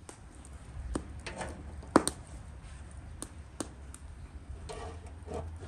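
Metal kebab skewers clicking and knocking against the steel rim of a charcoal grill as they are set down, with a few scrapes as they slide into place; the sharpest click comes about two seconds in.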